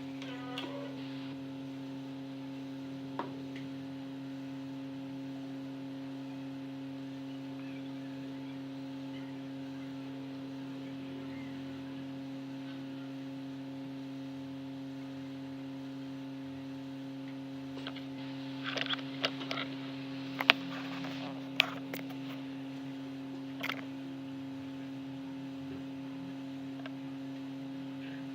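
Steady electrical hum, with a few short, light clicks and taps, most of them clustered about two-thirds of the way in.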